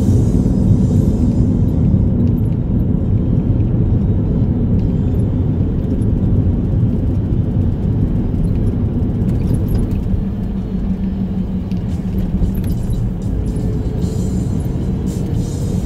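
Low rumble of a 2010 Toyota Rukus heard from inside the cabin as it drives in traffic, with music playing over the road noise.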